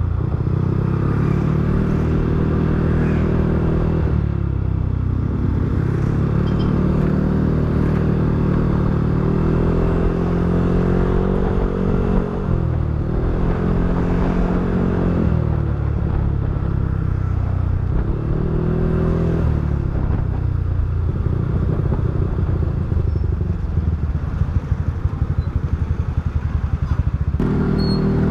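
Yamaha NMAX v3 scooter's single-cylinder engine through a TSMP 2.5 aftermarket exhaust, revved up and let back down several times. It then drops to a low, pulsing idle for several seconds before rising again near the end.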